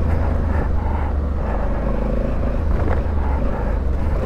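Honda Africa Twin CRF1100L's parallel-twin engine running at a steady pace while riding off-road, heard as an even low rumble.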